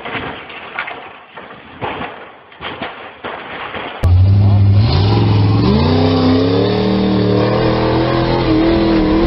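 Scattered knocks and rattles. About four seconds in, these give way abruptly to an off-road buggy's engine revving hard under load, loud, its pitch climbing and then held high as the buggy drives up a steep dirt hill.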